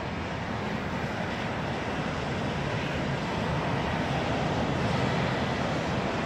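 Steady rushing background noise with a low rumble, getting slowly a little louder and with no distinct events.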